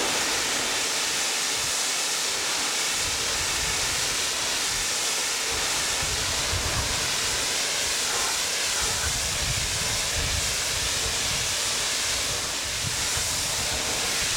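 Car wash high-pressure spray wand hissing steadily as its jet of water blasts across a felt saddle pad.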